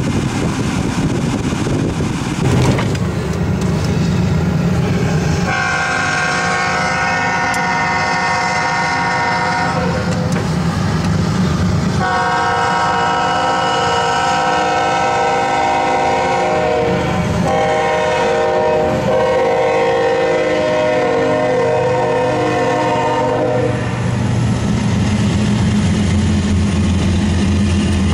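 Freight train rumbling past, then a Union Pacific diesel locomotive's horn sounding a long, long, short, long pattern, the grade-crossing warning, as the train approaches. Near the end the horn stops and the locomotive rumbles by.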